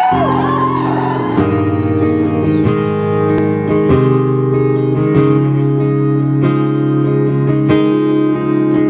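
Acoustic guitar strummed in steady, evenly paced chords: the live instrumental intro of a song, before the singing starts.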